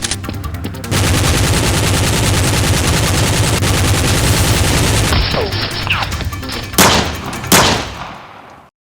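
Rapid automatic gunfire sound effect for several seconds, then two loud single shots a little over half a second apart, fading out to silence.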